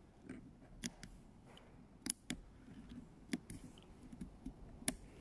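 A few faint, sharp clicks and light knocks, about five spread over several seconds, against quiet room noise.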